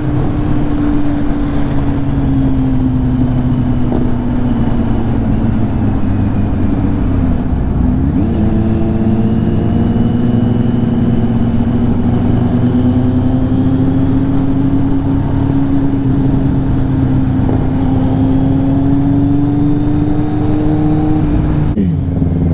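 Kawasaki Z800's inline-four engine running at steady riding revs, heard from the rider's seat over road and wind noise. The revs dip briefly about eight seconds in, then climb slowly.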